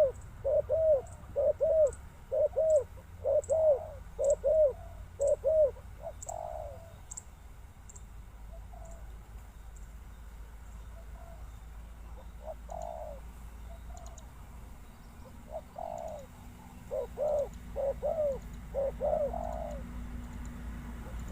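Spotted dove cooing: a quick run of short, arched coos over the first six seconds, a pause, then another bout of coos in the second half.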